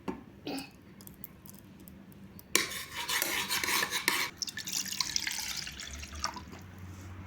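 Kitchen sounds: a few light clinks of a utensil against a dish, then water flowing for about two seconds, starting abruptly a couple of seconds in and trailing off.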